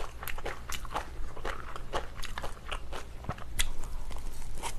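Close-miked chewing and crunching of spicy cabbage kimchi with rice: irregular crisp crunches as the cabbage is bitten and chewed, with another bite taken near the end.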